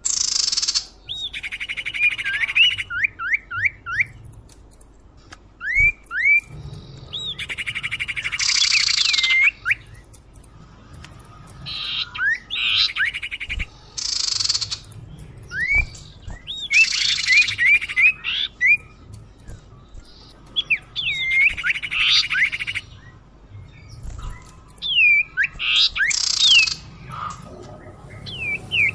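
Lure recording of cipoh (common iora) calls. Phrases repeat every two to three seconds, each a harsh, raspy chatter together with runs of quick rising whistled notes.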